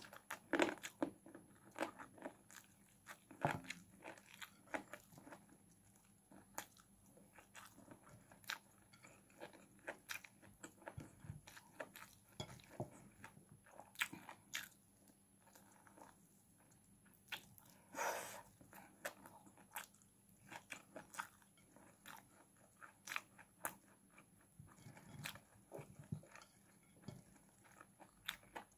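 Close-up eating sounds of a person chewing and biting chicken and rice eaten by hand: quiet, irregular wet clicks and crunches, with a longer one about 18 seconds in.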